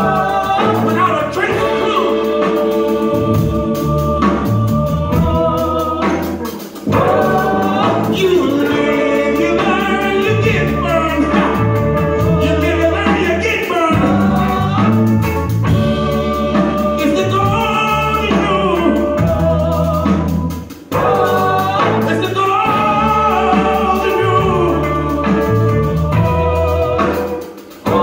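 Live band with several singers singing together over drums, bass and guitar, in a gospel-like style. The music dips briefly a few times.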